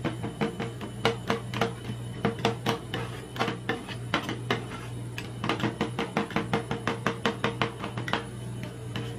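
Metal spatulas chopping and scraping ice cream on a steel cold plate: a quick run of sharp clicks and taps, about three or four a second, that thins out near the end.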